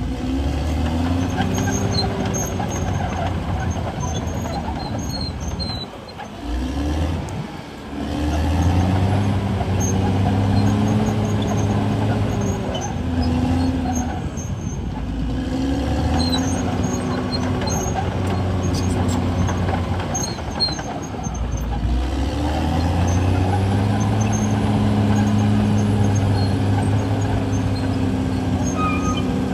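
Caterpillar D6R crawler bulldozer's diesel engine working hard as it pushes earth, its note swelling and easing in long surges with the load. The engine note drops briefly about six seconds in and again a little past twenty seconds, then climbs back.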